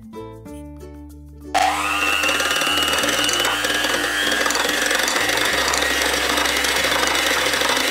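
Electric hand mixer switched on about a second and a half in: its motor whine rises quickly and then runs steadily and loudly as the beaters whip cream in a glass bowl.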